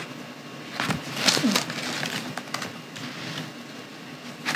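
Paper pages rustling and being turned in a binder close to the podium microphones, in a series of short rustles, the loudest about a second in.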